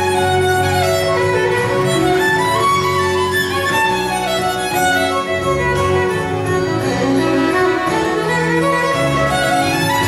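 Solo violin playing a flowing melody, amplified through a microphone, over sustained low accompanying notes.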